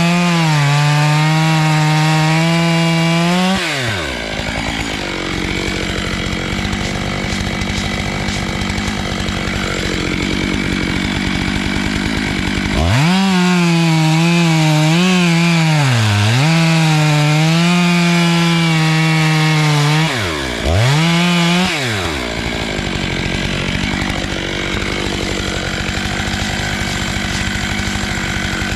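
Stihl chainsaw on an Alaskan-style chainsaw mill cutting through black walnut at full throttle. The engine note is a clean high whine that drops and turns rougher as the chain works through the wood, at about 4 seconds and again at about 22 seconds. In between it whines high again and dips a few times.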